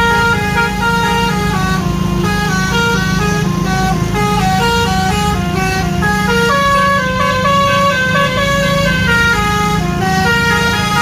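Bus 'telolet' musical air horn of the Basuri type playing a quick tune. Several notes sound together and step up and down every fraction of a second, over a steady low hum.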